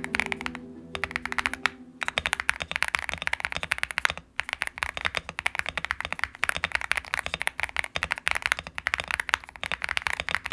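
Fast typing on a GravaStar Mercury K1 Pro mechanical keyboard: a rapid, continuous stream of key clicks, with brief pauses about two and four seconds in.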